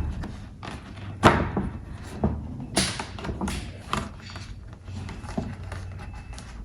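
A wrapped gift package being handled and pulled open: rustling and crinkling with several sharp knocks and clatters, the loudest about a second in and again near three seconds in.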